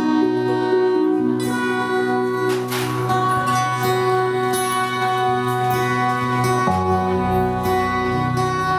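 Live band playing a song with acoustic and electric guitars and keyboard holding changing chords, a brief noisy swell about two and a half seconds in, and lower bass notes coming in near the end.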